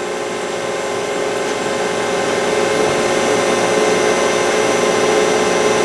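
Excel vertical CNC mill running an adaptive toolpath: a steady whir with a held whine, growing slightly louder over the few seconds.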